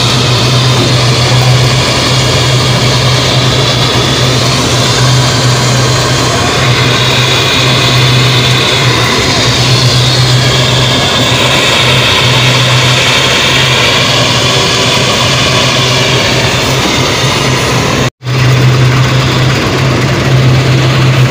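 Sugar mill cane-feeding machinery running with a loud, steady drone: a strong low hum under a higher whine that drifts slightly in pitch. The sound drops out for an instant near the end, then carries on unchanged.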